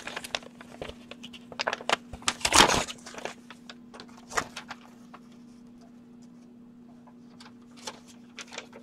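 A paper mail envelope being handled and opened, with rustling and small taps on the desk. The rustle is loudest about two and a half seconds in. After that only scattered faint taps and a steady low hum are left.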